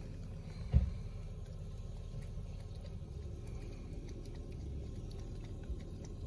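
Kitten lapping water from a plastic bucket: faint, repeated small licking ticks, with a single dull thump about a second in.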